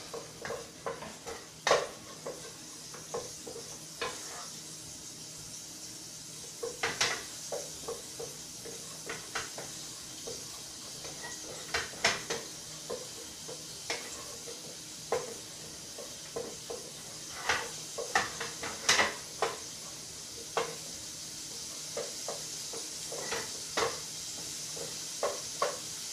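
Wooden spoon stirring a flour-and-oil roux in a stainless steel pot, with irregular clicks and knocks of the spoon against the pot over a steady faint sizzle as the roux cooks toward a nut-brown colour.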